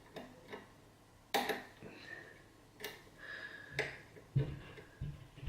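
Sharp, separate metallic clicks and taps from a lock pick and tension wrench working the pins of a 6-pin KIK lock cylinder, as pins are set one at a time. Dull low bumps of the lock being handled come near the end.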